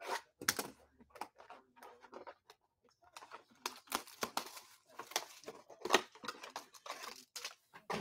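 Football trading-card hobby boxes being unwrapped by hand: irregular tearing and crinkling of the packaging, the loudest rip about six seconds in.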